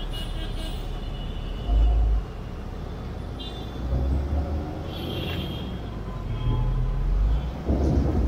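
Busy city road traffic heard from a slowly moving car: a steady low engine and tyre rumble from the surrounding buses, cars and taxis, with a short loud low surge about two seconds in and brief high tones from the traffic about three and five seconds in.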